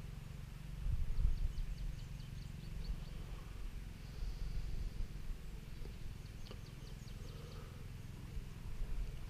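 Small birds chirping in two quick runs of short, high notes over a steady low rumble.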